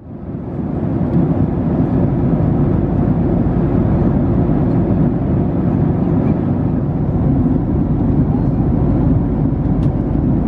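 Steady cabin noise of a Boeing 767-300ER in flight: a deep, even rumble of engines and airflow, fading in over the first second.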